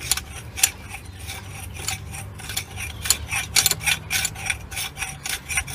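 Cut end of a thick stainless steel tube being deburred by twisting it against the deburring part of a hand pipe cutter: a run of short, uneven metal-on-metal scrapes, coming faster in the second half.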